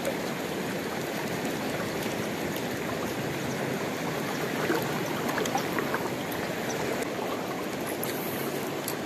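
Fast-flowing river current rushing steadily, with a few faint clicks around the middle and again near the end.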